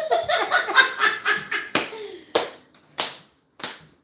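A woman laughing and squealing excitedly with quick hand claps, then four sharp smacks about half a second apart, growing fainter.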